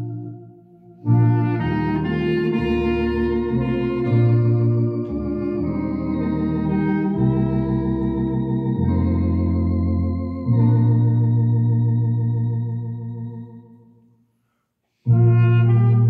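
Tokay electronic organ and a Moresk clarinet playing a slow hymn together in long held chords. The music dies away just after the start and again near the end, leaving about a second of silence, each time resuming on a new phrase.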